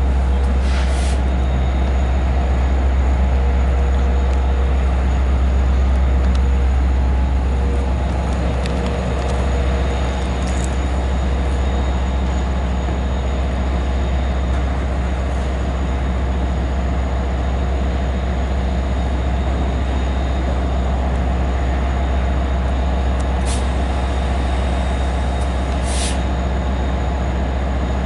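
Long Island Rail Road diesel locomotive running with a steady, loud low drone. A few short air hisses, typical of air brakes, come about a second in and twice near the end.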